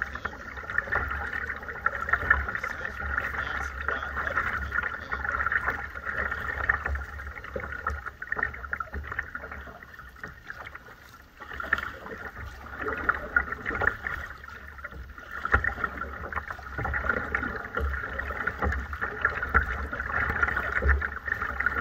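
Water sloshing and splashing against a plastic kayak's hull as it is paddled, picked up by a camera mounted on the bow, with a low rumble underneath. It turns quieter for a few seconds around the middle.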